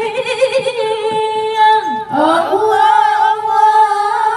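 Several women singing together into microphones without accompaniment: long held notes with wavering ornaments. A new phrase begins after a short breath about two seconds in.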